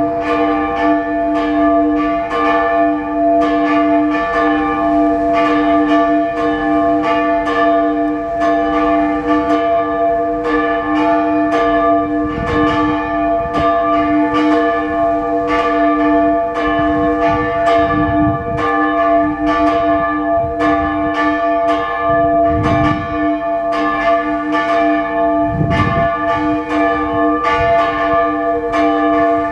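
Several Orthodox church bells ringing continuously, struck over and over about twice a second, so that their tones overlap into one sustained peal.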